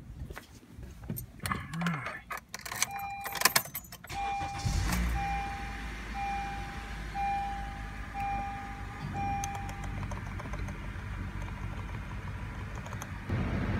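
Clicks and rattles with keys, then a 2013 Honda Accord's engine starting from cold about four and a half seconds in and settling into a steady idle. A dashboard warning chime beeps about once a second for several seconds after the start, and near the end the cabin blower comes up as the heat is set to full.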